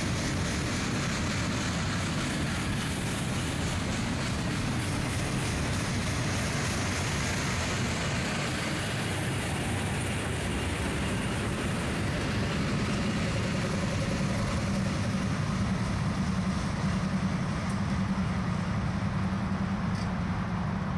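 Freight train passing close by: a steady rumble and clatter of railcar wheels on the rails. About halfway through, the low drone of a BNSF GE C44-9W diesel locomotive grows stronger as the unit comes past.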